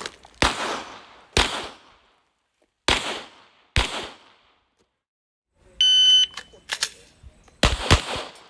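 Pistol shots on a shooting range: four shots about a second apart, then a shot timer's electronic beep lasting about half a second, followed by a quick pair of shots near the end.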